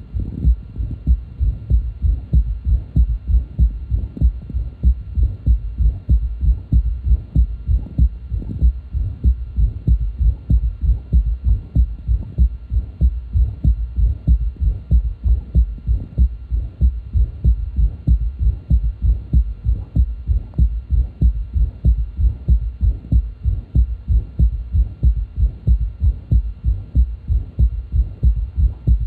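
Heart sounds recorded through a stethoscope bell over the cardiac apex: a fast, even rhythm of low thuds, the first and second heart sounds each followed by a low-pitched third heart sound (S3). In an adult this S3 is almost always pathological, the sound of left ventricular failure.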